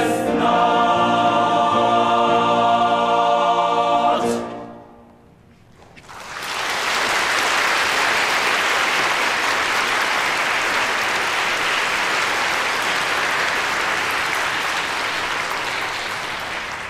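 A young men's choir holds its closing chord, which cuts off about four seconds in and dies away. After a short pause, audience applause starts and carries on steadily, tailing off slightly near the end.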